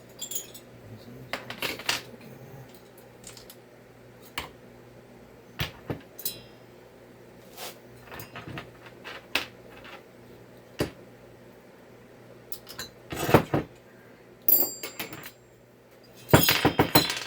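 Small metal tools and parts clinking and being set down on a workbench during a chainsaw engine teardown. Scattered clicks and light metallic clinks, some ringing briefly, with denser handling about 13 s in and near the end.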